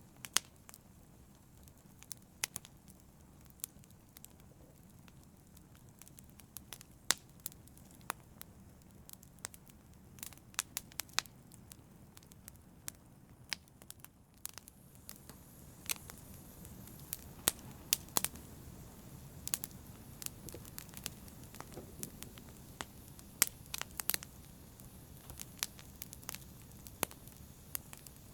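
Wood fire burning in a fireplace: a soft low hiss under irregular sharp crackles and pops, a little denser in the second half.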